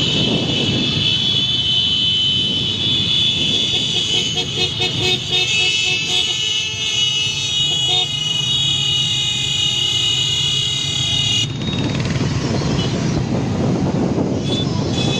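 Many motorcycles riding along together, engines running, with horns sounding over them. The horns stop suddenly about three-quarters of the way through, leaving the engines.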